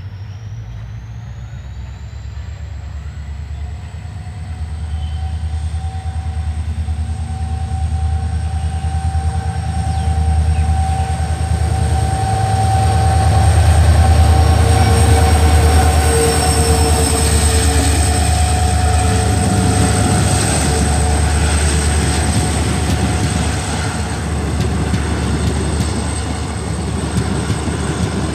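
Two EMD diesel locomotives, a WDG4D and a WDP4, passing under power: a heavy engine rumble with a high whine that rises in pitch over the first few seconds and then holds. It is loudest about halfway through as the locomotives go by, and the coaches' wheels roll past near the end.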